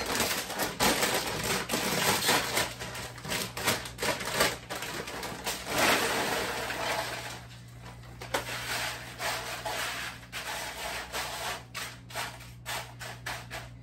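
Plastic tortilla-chip bag crinkling as bite-size tortilla chips are poured out onto a sheet pan, the chips clattering and rustling, then quieter rustling as the chips are spread by hand from about halfway through.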